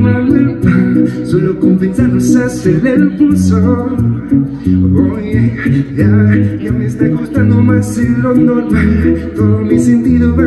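A man singing into a microphone over a nylon-string acoustic guitar, with deep bass notes changing underneath.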